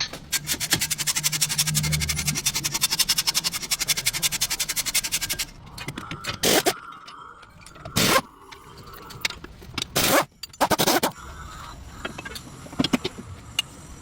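Mechanic's tools at work on a car's front suspension: rapid, even clicking for about five seconds, then four loud, sharp metal knocks spread over the next five seconds.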